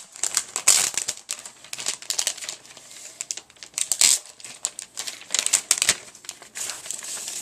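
Protective plastic wrapping being pulled off a new keyboard: irregular bursts of crinkling and rustling, loudest about a second in, at about four seconds and again near six seconds.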